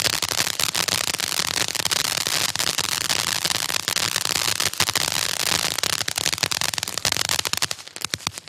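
Black Cat Tropical Thunder firework cake's crackling effects: a dense, continuous crackle of countless small pops. Near the end it thins to scattered pops and stops as the cake burns out.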